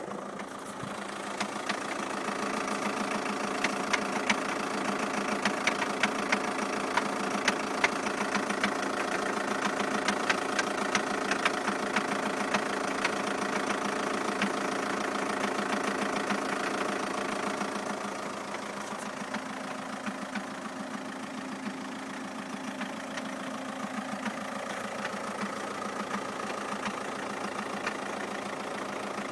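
Skoda Octavia II 2.0 TDI four-cylinder diesel idling with a rapid, irregular knocking. The knock shows only after a cold start, once the engine has idled a few minutes; the owner wonders whether it is a balance shaft problem and rules out the newly replaced clutch and dual-mass flywheel. The sound drops a little in level about two-thirds of the way through.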